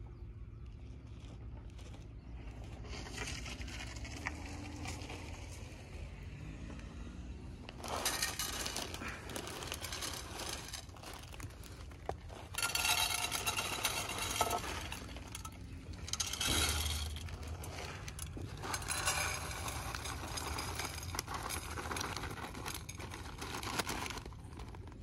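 Dry cat kibble poured from a crinkling plastic bag, rattling into metal feeding pans in several spells of a few seconds each.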